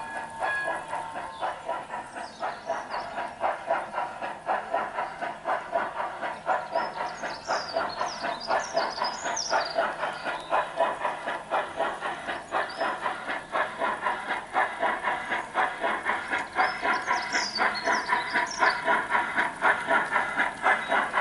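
G-scale model steam locomotive chuffing in an even rhythm as it hauls a freight train, getting louder toward the end.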